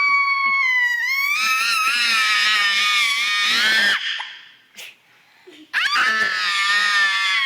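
A young child with the hiccups screaming: two long, high-pitched screams. The first breaks off about four seconds in and the second starts about six seconds in, with a short hiccup between them.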